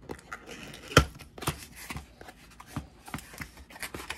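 Small cardboard product box being opened by hand: the sleeve and inner tray sliding and scraping, with a run of short taps and clicks and one sharp knock about a second in.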